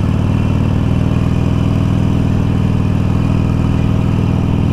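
Harley-Davidson Iron 883's air-cooled V-twin engine running at a steady pace while the motorcycle is ridden, with no change in revs.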